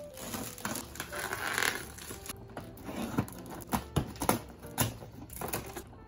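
Plastic shrink wrap crinkling and tearing as it is cut off a cardboard box with scissors, then a run of sharp clicks and taps as the scissors cut the tape and the cardboard flaps are handled.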